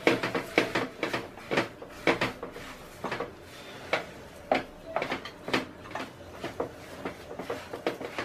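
Silicone spatula scraping and knocking in a nonstick kadai as sesame seeds are stirred into sticky jaggery syrup. It goes in short irregular strokes, about two a second.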